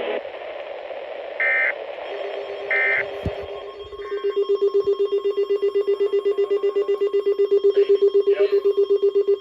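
NOAA Weather Radio alert sequence: three short bursts of digital SAME data tones, then a weather-alert receiver's alarm beeping rapidly, about eight beeps a second, over a faint steady warning tone. The beeping signals that a new warning is being broadcast.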